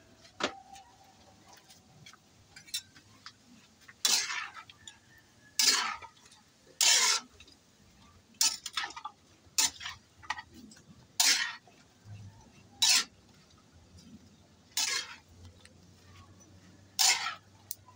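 Metal spatula scraping and clanking against a metal wok as vegetables are stir-fried, in about a dozen separate strokes a second or two apart.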